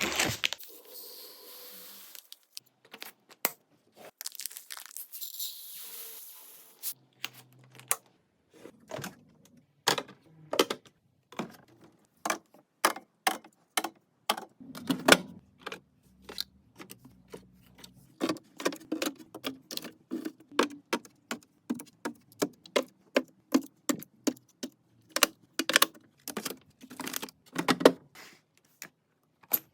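Refilling and putting away household goods: packaging rustling and tearing in the first few seconds, then a long, irregular run of sharp clicks and knocks as containers, caps and lids are handled and set down.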